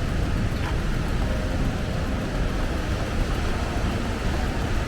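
Steady rush of the Rogue River's whitewater pouring through a lava-rock gorge, a continuous even noise that is heaviest in the low range.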